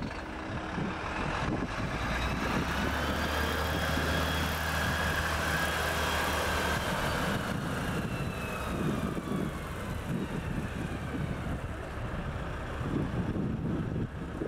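Heavy truck's diesel engine running steadily as the sideloader truck drives along, with a faint whine that slowly rises and then falls in pitch.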